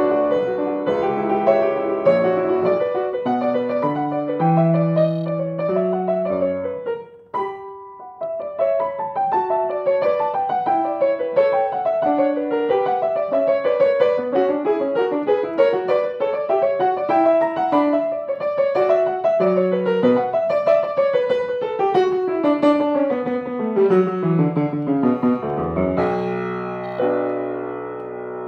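Grand piano played solo: the playing breaks off briefly about seven seconds in, then fast runs of notes sweep up and down the keyboard, ending on a low chord left to ring.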